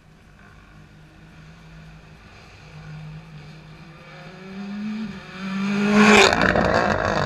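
Rally car approaching at full speed, engine revs climbing in steps through several gear changes, then passing close by loudly about six seconds in and pulling away.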